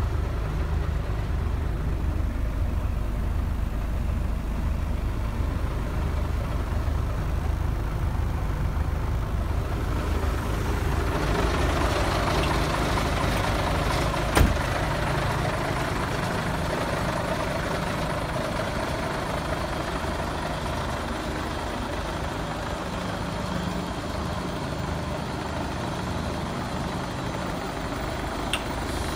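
Iveco 440E42 truck's diesel engine idling steadily. It is muffled at first, heard from inside the cab, then fuller and brighter from about ten seconds in. A single sharp click comes a few seconds later.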